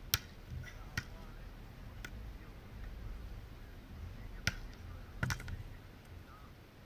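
About five sharp slaps or clicks at uneven intervals, the two loudest near the start and about four and a half seconds in, over a low steady rumble of wind.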